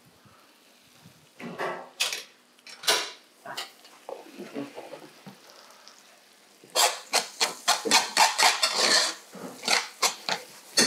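A few scattered clatters of cookware, then from about seven seconds in a quick, dense run of clinks and scrapes as a metal spoon stirs cheese Spätzle around a stainless steel frying pan.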